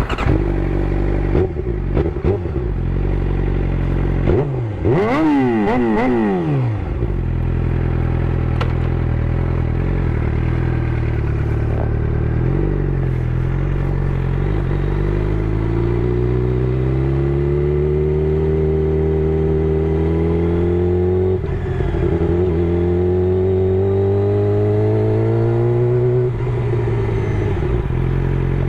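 Suzuki GSX-R600 inline-four engine running through an M4 GP slip-on exhaust. It revs quickly up and back down about five seconds in, then runs steadily. It then climbs slowly in revs twice, each climb cut off by a sudden drop in revs near the end.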